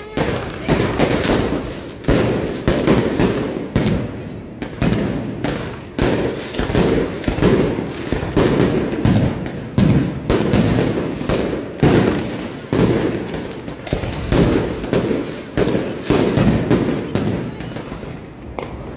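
Aerial fireworks going off in a continuous barrage: a rapid run of sharp bangs and bursts, two or three a second, without a pause.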